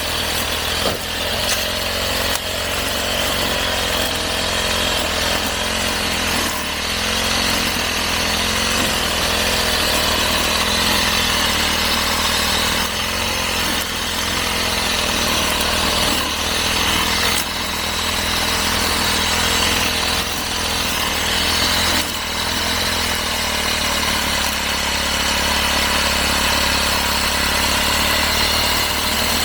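Two-stroke brush cutter running steadily while cutting grass and weeds, its engine pitch wavering slightly up and down as it meets the growth.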